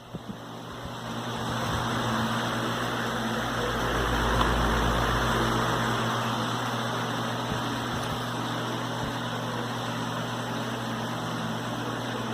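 Homemade large table fan, a wall-fan motor turning a washing-machine agitator as its blade, running: a steady rush of air over a low motor hum. It grows louder over the first couple of seconds.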